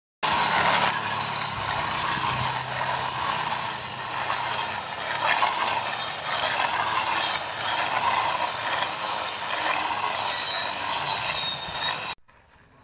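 Cordless battery-powered string trimmer on small wheels, its electric motor running steadily as the spinning line cuts through grass and weeds. It stops abruptly near the end.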